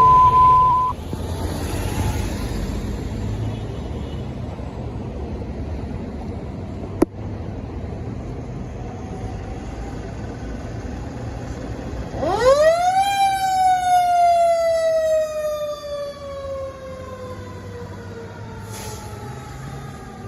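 A steady radio alert tone cuts off in the first second, then a low rumble, with one sharp click about seven seconds in. About twelve seconds in, a fire engine's siren winds up quickly and then slowly falls in pitch.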